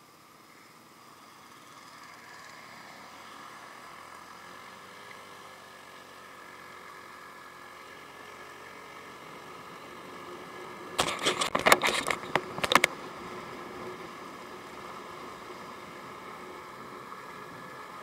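Honda Ruckus scooter running steadily as it rides off, its drone swelling over the first couple of seconds. About two-thirds of the way through comes a quick cluster of sharp knocks.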